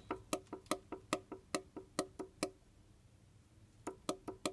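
Metal clicking from a connecting rod in a VW 1.6 BSF four-cylinder engine being rocked sideways by hand, about three to four sharp knocks a second. The rod has side play, suspected excessive wear at 311,000 km. The knocking pauses for about a second after the middle and starts again near the end.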